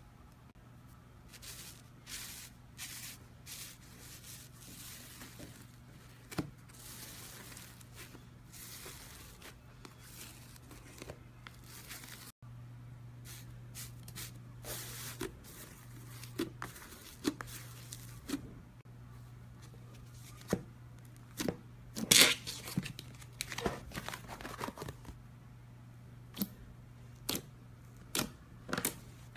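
Slime being pressed and poked by hand: crackling, crunching and sticky popping in irregular bursts, with a few louder pops, over a faint steady low hum.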